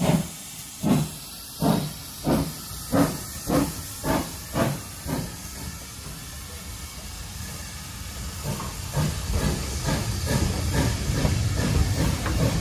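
Steam exhaust beats from a GWR 5700-class pannier tank locomotive pulling away, about nine sharp chuffs that come quicker as it gathers speed and fade after about five seconds. Then the rumble and wheel clatter of its passenger coaches rolling past grows louder.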